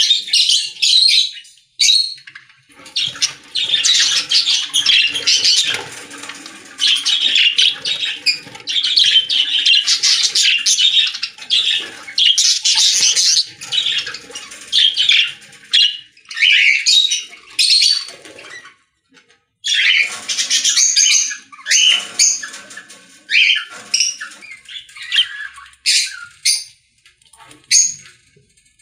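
Caged lovebirds and budgerigars chattering and squawking in a dense, high-pitched din, with short gaps and one brief break about two-thirds of the way through.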